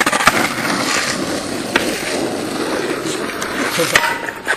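Skateboard wheels rolling over rough asphalt: a steady rumble for about four seconds, starting and ending with a sharp clack.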